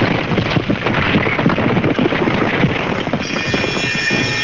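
Loud, rough rushing noise full of crackles, storm wind as heard on an old AM radio recording. Music with held tones fades in about three seconds in.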